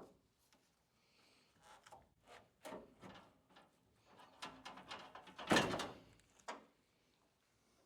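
A series of irregular knocks, clicks and clunks as trim and window parts are worked loose and handled at a truck's door. The loudest clunk comes about five and a half seconds in.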